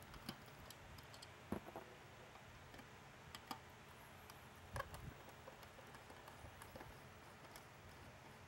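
Faint scattered clicks and taps of a screwdriver working small screws out of an LED beacon's top control board, with a few louder taps about a second and a half and about five seconds in.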